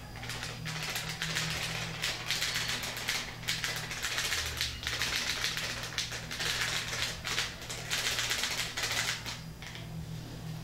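Plastic packet of grated cheese crinkling and crackling as it is squeezed and shaken, in repeated bursts with short pauses between, over a low steady hum.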